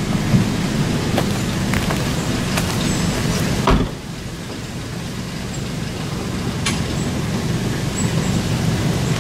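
Pickup truck engine idling with a steady low hum, with one loud thump of the truck door shutting a little under four seconds in and a few light metallic clicks around it.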